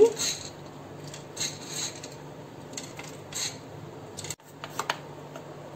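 Crisp fried boondi (gram-flour pearls) being picked from a bowl and dropped into puris, giving a few short, dry rustling crackles about a second apart.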